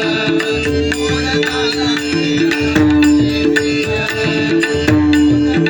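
Instrumental interlude of devotional music between sung verses: a sustained melody line held on long notes over steady hand-drum beats.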